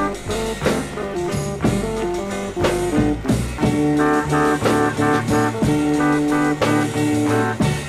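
Instrumental break of a blues song: a band playing a melodic lead over drums, with no singing.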